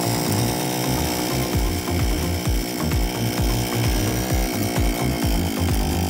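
Small two-stroke engine of a Norutan ride-on rice-paddy ditch cutter running steadily just after starting.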